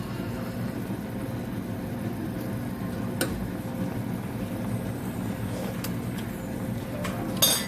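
Steady low mechanical hum, with a single sharp metallic click about three seconds in and a quick clatter of metal on metal near the end, like a spoon against a cooking pot.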